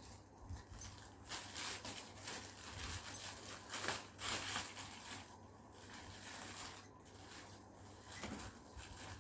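Faint rustling and scraping of a small bag being handled and turned over, with scattered soft clicks and swishes.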